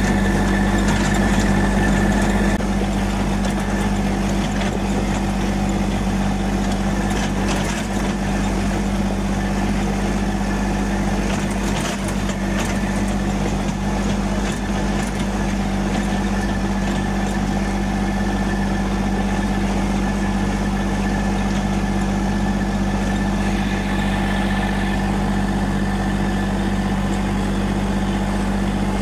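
Ford 3000 tractor's three-cylinder engine running steadily at an even speed, a little louder for the first couple of seconds.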